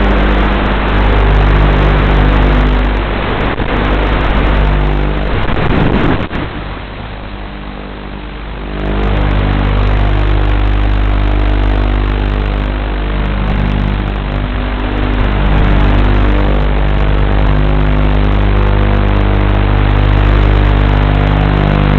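FPV quadcopter's electric motors and propellers running, heard through the drone's low-quality onboard microphone, with a drop in power about six seconds in before throttling back up.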